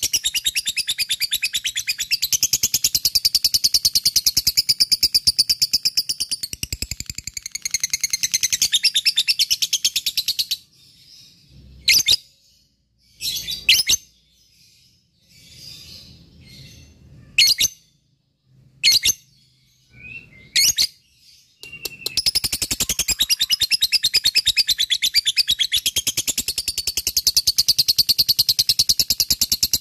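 Peach-faced lovebird singing its long 'ngekek' trill, a loud chatter of very fast repeated notes. About ten seconds in it breaks off into a handful of short sharp chirps, then goes back into the long fast trill for the last eight seconds or so.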